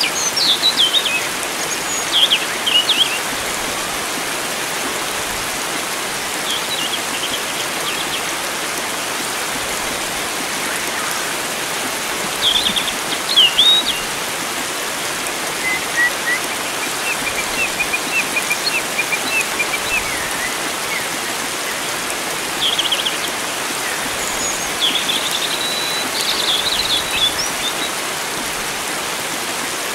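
Steady rushing of flowing water, with wild songbirds chirping and trilling over it in short scattered phrases, including a longer run of quick notes about halfway through.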